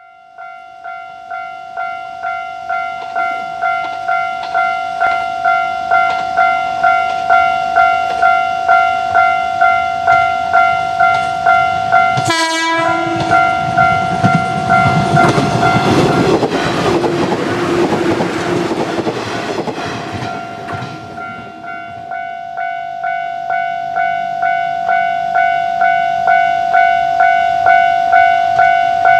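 Japanese level-crossing warning bell ringing its electronic ding a little under twice a second, growing louder. About twelve seconds in there is a short horn blast, then a JR Kyushu 415-series electric train rumbles over the crossing for about eight seconds, drowning out the bell, which rings on after it has passed.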